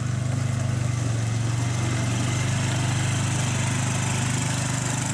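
Polaris Ranger UTV's engine running steadily at a low, even pitch.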